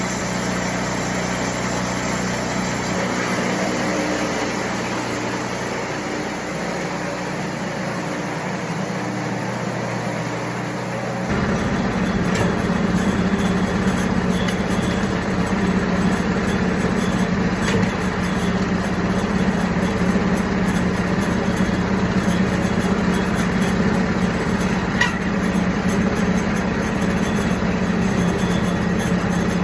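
Wood-Mizer portable bandsaw mill running steadily. About eleven seconds in, the sound turns abruptly louder and rougher as the band blade saws through a big spruce log.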